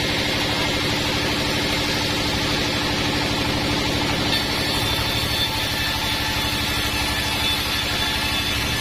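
Band sawmill running steadily, a constant mechanical drone with a rapid even pulse; a faint high whine joins about four seconds in.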